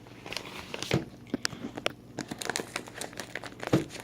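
Packing paper crinkling and crumpling in irregular crackles as a wrapped orchid is handled and unwrapped, with two duller knocks, about a second in and near the end.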